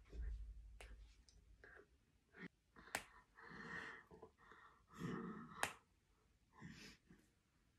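Quiet breaths and mouth sounds from a person signing without voice, with a few sharp soft clicks of hands meeting about a second in, near the middle and past halfway.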